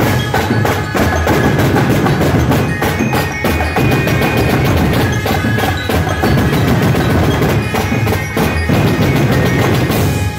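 Percussion band drumming a dense, continuous rhythm with mallets and sticks on large barrel drums, tall tom drums and cymbals, with some ringing metallic tones over the beat.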